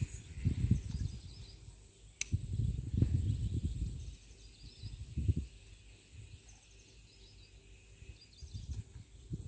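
Steady high-pitched insect drone over low, irregular rumbling on the microphone that dies down about five and a half seconds in. There is one sharp click about two seconds in and several short, high chirps scattered through.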